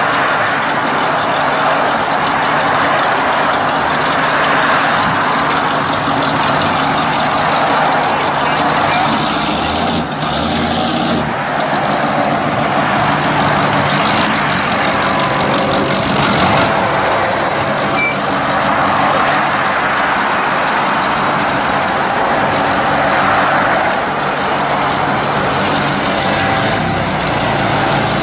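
Hot rod engines running and pulling away, with other road traffic passing. First it is a black 1930s-style coupe with an exposed multi-carburetor V8; near the end a matte black custom coupe pulls out.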